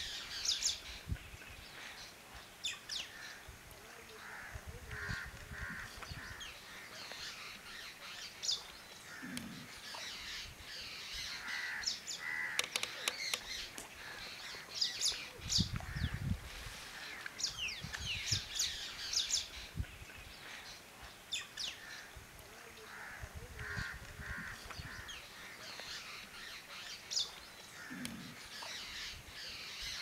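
Wild birds calling and chirping, many short high calls over and over, with a few low rumbles now and then.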